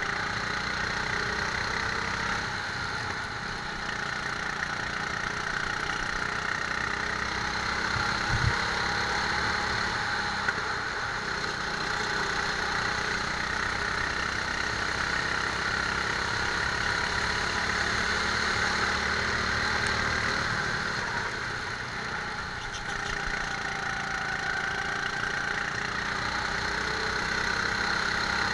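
Rental go-kart engine running at speed, heard from on board the kart. The engine note drops briefly twice and picks up again, and there is a single short low thump about eight seconds in.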